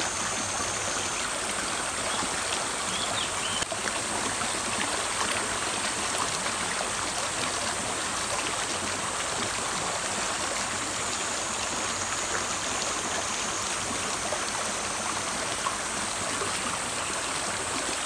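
Shallow rocky river flowing steadily over stones: an even, continuous rush of water.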